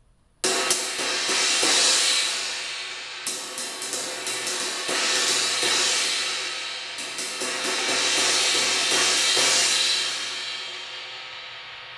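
A 16-inch crash cymbal, its cracked edge repaired and smoothed, struck repeatedly with a stick: a loud wash that swells and fades several times and dies away near the end.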